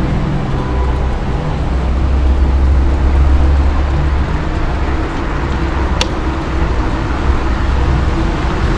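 Steady rushing wind noise on the camera microphone while riding an e-mountain bike, heaviest in the deep low end, with a single short click about six seconds in.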